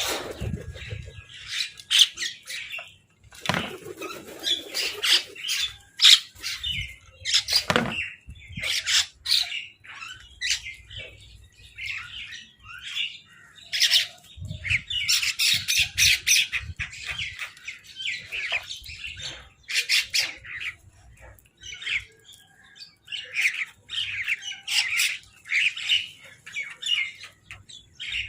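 Crows cawing and squawking, many short harsh calls in quick succession and overlapping, with a few low thumps among them in the first several seconds.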